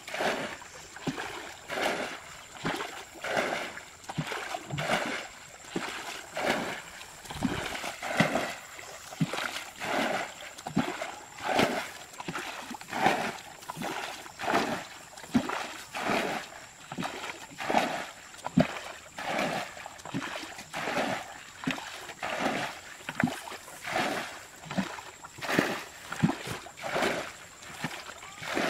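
Muddy ditch water being bailed with a bucket: repeated scooping splashes, about one a second, steady and rhythmic throughout.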